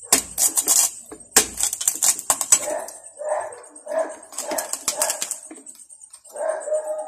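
Kitchen knife cutting through the crispy skin of roast lechon pork: bursts of sharp crackling and crunching in three spells, with the blade scraping against the plate.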